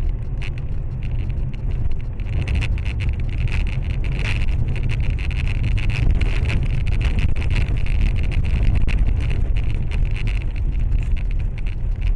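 Steady loud rumble of road and wind noise inside a car driving on a snowy road, heard through a dashcam microphone, with many small clicks and ticks throughout.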